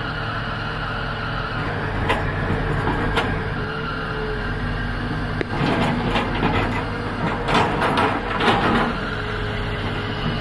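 Diesel engines of Tata Hitachi ZAXIS 220 crawler excavators running steadily, with a run of metallic clanks and knocks from the working machine between about five and nine seconds in.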